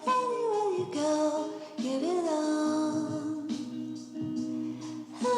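Background music: a melody that slides between notes in short phrases over sustained lower notes.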